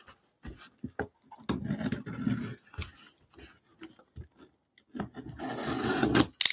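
Cardboard box being handled and opened by gloved hands: cardboard rubbing and scraping with scattered light taps, and a longer stretch of scraping about five seconds in that ends in a sharp click.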